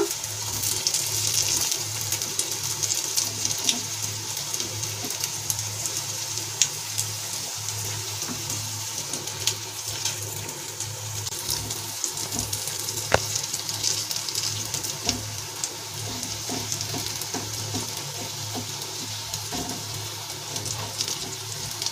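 Dhokla pieces shallow-frying in oil with mustard seeds in a nonstick pan: a steady sizzle with scattered small clicks and pops as the pieces are turned. A steady low hum runs underneath.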